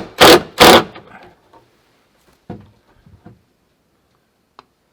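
Two loud knocks about half a second apart near the start, followed by a few faint knocks and a small click near the end.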